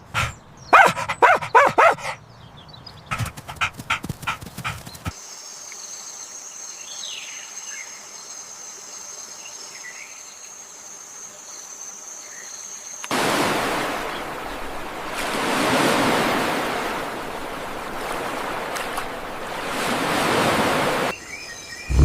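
Dog barking and yipping in quick bursts during the first few seconds. Then a quieter stretch with a steady high whine, and a long rushing noise through the second half.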